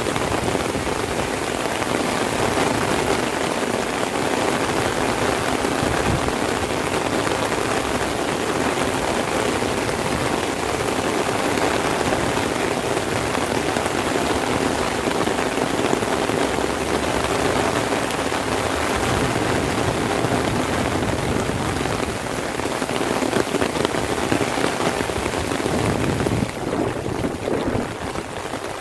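Heavy rain falling steadily, a dense even hiss of drops on surfaces, a little softer near the end.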